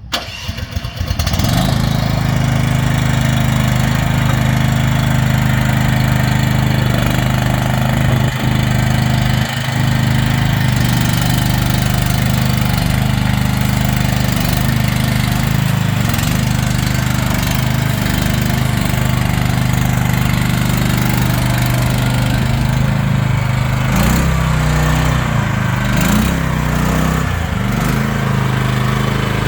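The engine of a SDLANCH SDLL60 stand-on mini skid steer running steadily. Its note wavers a few times near the end.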